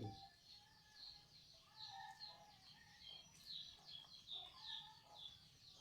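Faint birds chirping in the background, with many short high notes in quick succession.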